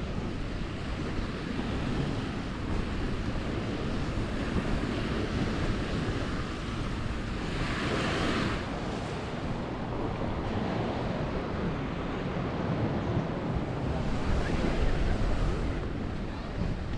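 Surf washing onto a sandy beach, with wind rumbling on the microphone. A louder wash of a wave hisses briefly about halfway through.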